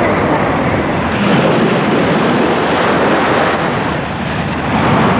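Loud, steady rushing noise with no clear tone or rhythm, easing off near the end.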